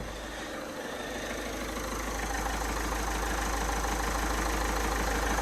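Ford Fiesta 1.6 TDCi four-cylinder diesel engine idling steadily, ticking over evenly now that it starts, the fault behind its crank-no-start taken to be the reluctor ring. It grows gradually louder over the first couple of seconds, then holds steady.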